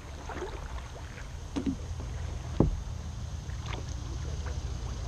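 Kayak paddling: a paddle dipping and splashing into the water with strokes about once a second, the loudest about two and a half seconds in, over a steady low rumble.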